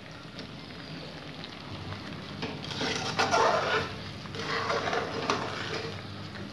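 A slotted metal spatula scraping and stirring thick moong dal halwa around a metal kadhai, with a faint sizzle of the halwa roasting in ghee. The scraping comes in two louder stretches, about three seconds in and again about five seconds in.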